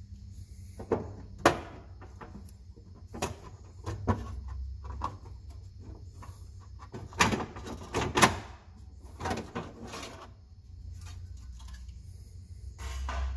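A series of sharp knocks and clunks, about eight, irregularly spaced, as of hardware being handled or a panel being opened. The loudest come about a second and a half in and around seven to eight seconds in, over a low steady hum.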